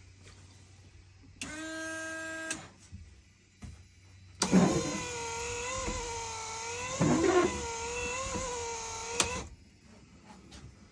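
Aftermarket UTV windshield washer and wiper kit being run: the washer pump hums steadily for about a second, then the electric wiper motor runs for about five seconds. Its whine dips and rises with each sweep of the blade across the wet glass, and there are sharp knocks at the start, midway and at the end.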